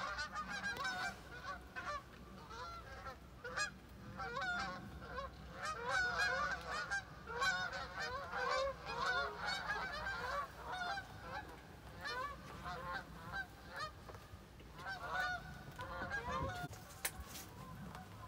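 A flock of geese honking, many calls overlapping at once, busiest through the first ten seconds or so, then thinning out to scattered honks with a short burst again near the end.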